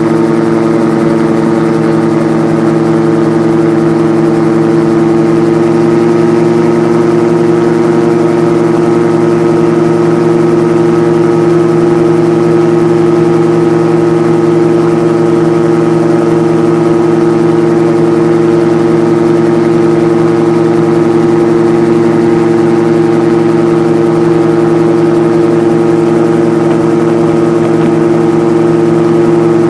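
RAF 2000 gyroplane's engine and pusher propeller running steadily in level cruise, heard from on board. A constant, unchanging engine note with no change in power.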